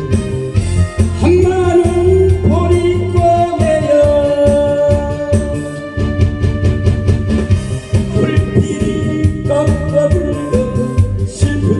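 Korean trot music with a steady beat and a sliding, wavering lead melody over bass and keyboard accompaniment.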